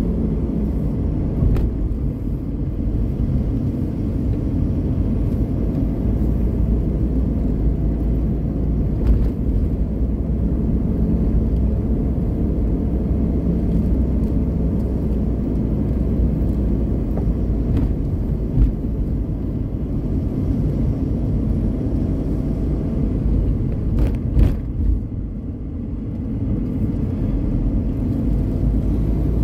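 Steady low rumble of a car driving along the road: engine and road noise, with a few brief knocks now and then.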